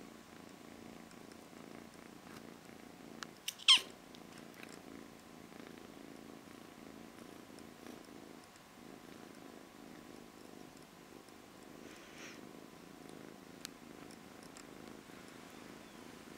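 British Shorthair cat purring steadily. About four seconds in there is one brief, sharp, high sound rising in pitch, the loudest thing in the stretch, with a few faint clicks around it.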